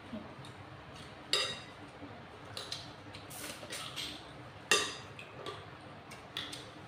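Spoons and forks clinking and tapping against plates while people eat, a handful of short sharp clinks with two louder ones, one about a second in and one a little past the middle.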